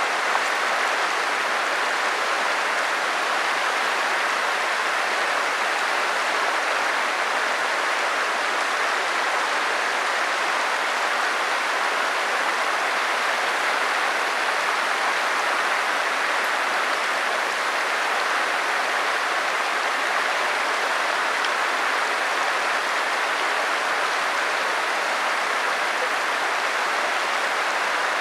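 Stream water running, a steady rushing that does not change.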